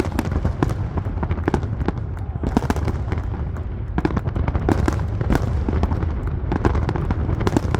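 Fireworks display: a dense, irregular string of bangs and crackles over a steady low rumble.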